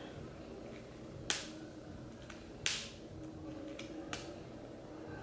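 A few sharp clicks, roughly a second and a half apart, from hands working at a hard package that is difficult to open.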